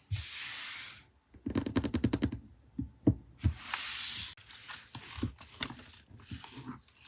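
Paper and packaging being handled close up: two spells of rustling or tearing, with a quick run of light clicks between them and scattered soft taps.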